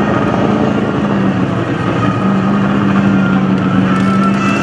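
Propeller airplane engine running steadily, a constant drone over a noisy rush; a higher whine comes in near the end.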